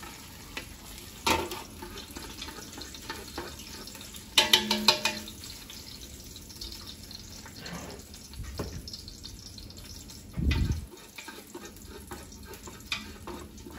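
Kitchen work sounds: a steady low hiss from frying or running water, with a quick clatter about four and a half seconds in and a dull thump about ten and a half seconds in.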